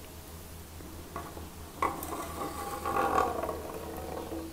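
Basalt rock sample lowered into a water-filled graduated cylinder: a knock a little under two seconds in as it enters, then a few seconds of water splashing and bubbling as it sinks.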